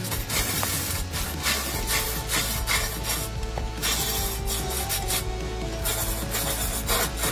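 A hand-held turning tool scraping and cutting into a large log spinning on a giant wood lathe, rough-turning away the bark in an irregular rasping scrape over the lathe's steady low motor hum. Background music plays underneath.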